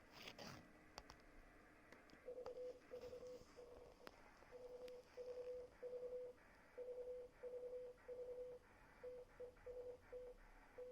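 Morse code as a faint, steady mid-pitched beeping tone, keyed on and off in dots and dashes: the sidetone of a homebrew CW keyer built on a WinKeyer3 chip. The keying starts about two seconds in, after a few faint clicks.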